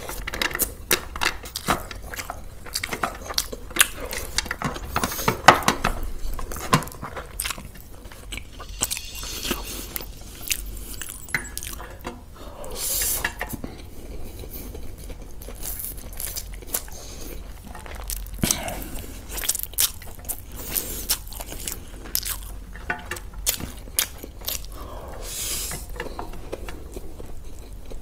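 A person eating close to the microphone: irregular crunching and chewing of food, mixed with small clinks of cutlery and dishes.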